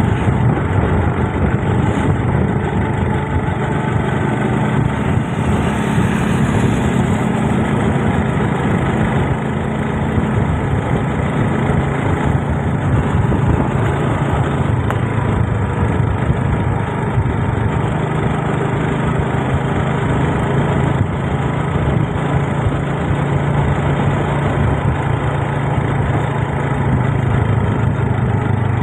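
Motorcycle engine running at a steady cruise, heard from the bike itself while riding, over a constant rush of wind and road noise.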